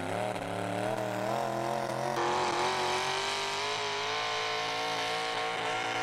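Pulling truck's small-block V8 engine running hard under load down the track, its pitch wavering up and down unevenly for the first couple of seconds, then steadier after an abrupt change. The truck is not running quite well: it is still battling mechanical gremlins.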